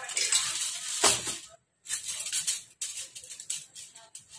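Aluminium foil crinkling and rustling as a foil-covered cake pan is set into a stainless steel steamer basket and the foil is pressed down, with a louder knock about a second in.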